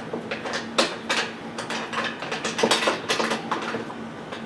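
Irregular small metallic clicks and rattles, several a second, as a wing nut is hand-tightened onto a stud through a corrugated metal hurricane shutter panel.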